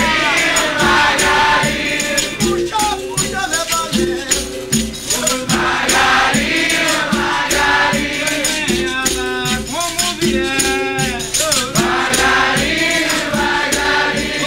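Capoeira roda music: berimbaus with caxixi rattles, pandeiro and atabaque playing a steady rhythm while a group sings along.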